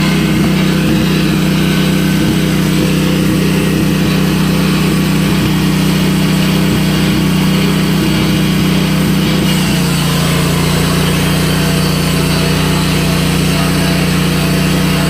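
An engine running steadily, its note shifting slightly about ten seconds in.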